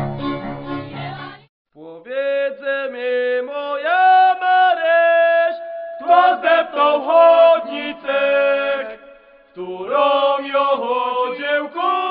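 Folk music: fiddle playing stops about a second and a half in, and after a short gap several voices sing a folk tune in three phrases with long held notes.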